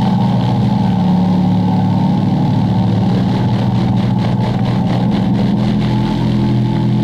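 Loudspeaker driven with a loud, steady low-frequency hum of several tones, shaking a cornflour-and-water slurry on its cone, with a faint crackle over it. The tones shift slightly about six seconds in.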